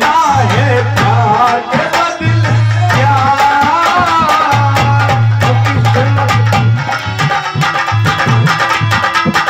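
Folk devotional bhajan music with fast hand-drum playing under a wavering melody line and a low bass note that comes and goes. The drumming grows denser in the second half.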